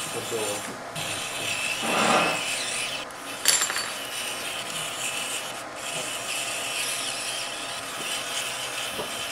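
Steady scratchy rubbing from hands handling the wiring and connector of an opened power supply board, with a sharp click about three and a half seconds in.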